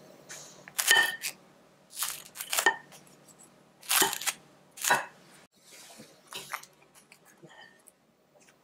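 Crisp lacy fried-dumpling skirt crackling and crunching as a wooden spatula breaks it apart on a ceramic plate. There are four or five loud, sharp crunches in the first five seconds, then lighter crackles.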